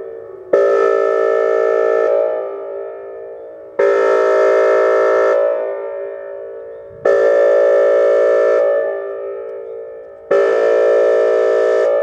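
Whelen WPS 2810 electronic speaker-array siren sounding a test tone: four loud, steady chord-like blasts about three seconds apart, each starting suddenly, held for about a second and a half, then fading away in echo.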